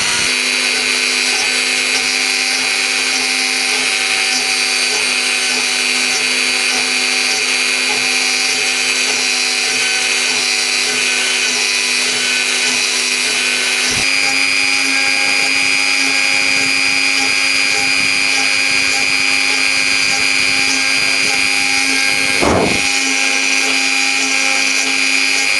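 Mini CNC router's spindle running with a steady high whine while its axis motors hum in a regular pulsing pattern as it mills a wooden logo. The tone shifts slightly about halfway through, and a brief low sweep sounds near the end.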